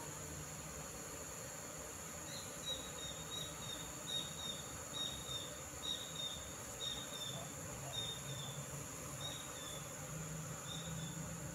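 A steady high-pitched insect drone, with a run of short falling chirps, mostly in pairs about a second apart, that starts about two seconds in and stops near the end.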